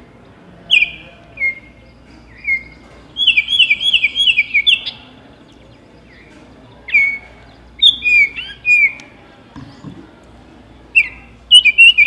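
Recorded Baltimore oriole song played from a small handheld speaker held up to a microphone: short phrases of clear whistled notes, mostly sliding down in pitch, with a quick run of about six notes a few seconds in.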